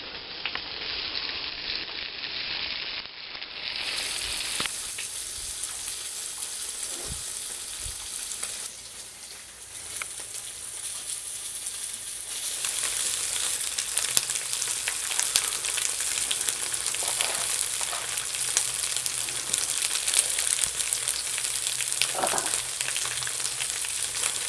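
Meat sizzling on a grill: a steady hiss with many fine crackles, getting louder about halfway through.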